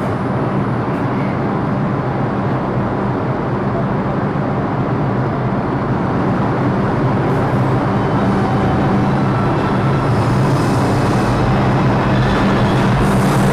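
New York City subway train running at the platform: a steady, loud rumble with a low drone that grows gradually louder.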